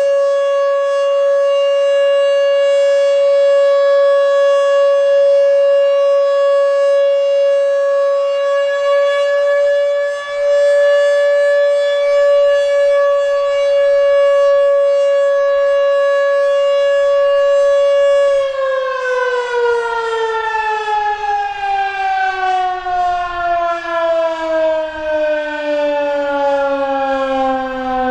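Fedelcode dual-rotor Mach 5 tornado siren sounding its full-alert steady tone, holding one pitch; about 18 seconds in it cuts power and winds down, the pitch falling steadily. The recordist finds it running a bit sluggish and not that loud.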